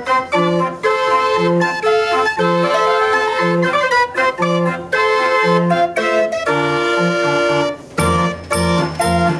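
Fair organ playing a tune on its wooden pipes: held pipe notes and a melody over a bass note about once a second. About eight seconds in, a deeper pulsing bass and sharp ticks come back in.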